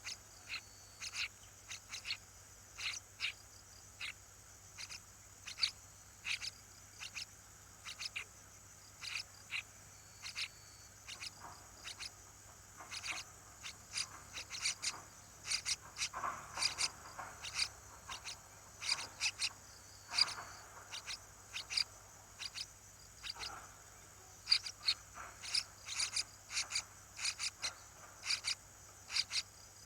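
Short, sharp animal chirps repeating irregularly, a few a second and getting busier partway through, over a steady high-pitched drone.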